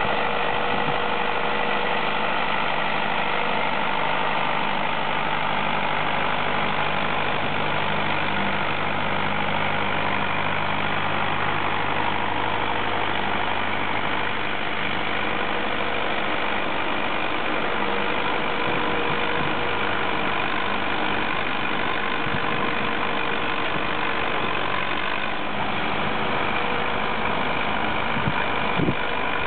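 Zetor 50 Super tractor's four-cylinder diesel engine running steadily under load while pulling a two-furrow plough. There are a couple of short knocks near the end.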